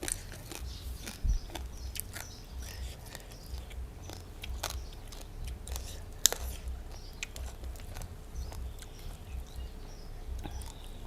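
A person chewing food close to the microphone, with soft rhythmic chewing and scattered sharp mouth clicks and crunches.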